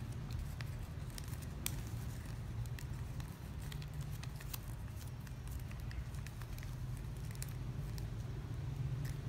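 Irregular light clicks and crinkles of shiny plastic ribbon being handled, threaded and pulled through a woven ribbon ketupat, over a steady low hum.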